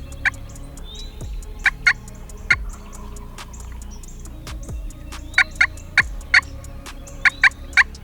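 Wild turkey gobbling in short loud bursts, a few early and a quick run of about eight in the second half, over electronic music with a steady ticking beat.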